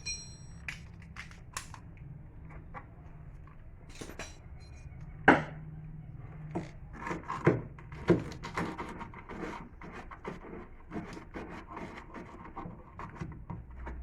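Scattered clicks and knocks of hand tools at work taking apart a car's rear shock absorber mounting, with one sharp knock about five seconds in and a cluster of louder knocks a couple of seconds later.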